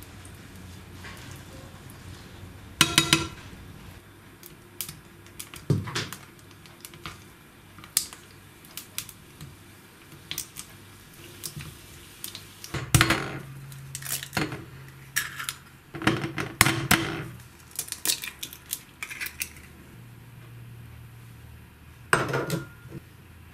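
Kitchen handling sounds: scattered light clinks, taps and scrapes of utensils against a nonstick frying pan and dishes, with several louder clusters of knocks spread through, over a low steady hum.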